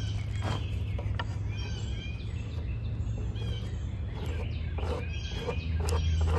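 Knife spine scraped down a ferro rod in a series of quick strokes, most of them in the second half, with songbirds calling repeatedly. A low steady rumble runs underneath and grows louder near the end.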